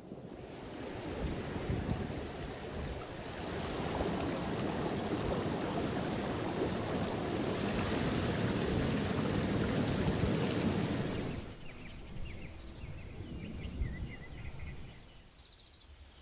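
Mountain river rushing over rocks: a steady, loud rush of water that cuts off suddenly about eleven seconds in. After it comes quieter outdoor ambience with faint chirping.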